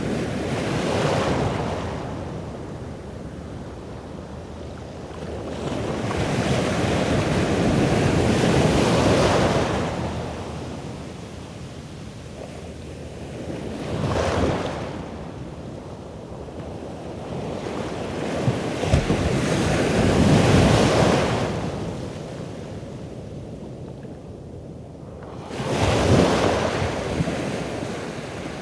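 Ocean surf breaking on a beach: waves swell and wash in, about five surges some six seconds apart, with wind buffeting the microphone.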